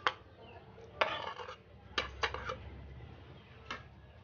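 A metal spoon clinking and scraping against a tray and a bowl as sugar is tipped off the tray into yogurt: about five short sharp clicks, at the start, about a second in, twice around two seconds in, and once near the end.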